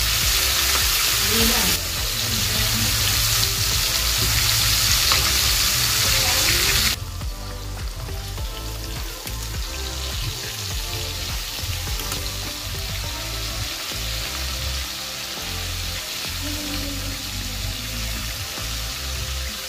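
Galunggong (round scad) deep-frying in hot oil in a wok: a steady sizzle that drops noticeably quieter about seven seconds in.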